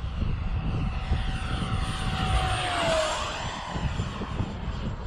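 The 70mm electric ducted fan of a Freewing F-35 Lightning II model jet whines as the jet makes a flyby. Its rush swells and its pitch drops as it passes, about three seconds in.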